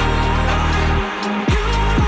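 Electronic background music with a heavy bass line. The bass drops out about a second in and comes back near the end as deep bass hits that fall in pitch.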